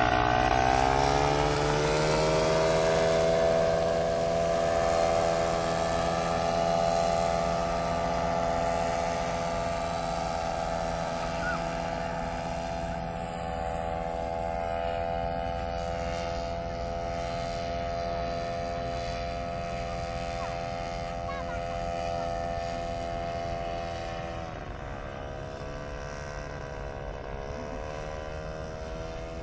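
Powered paraglider trike's engine and propeller droning in flight, loudest at first and slowly fading as it flies away, with two brief dips in pitch near the end.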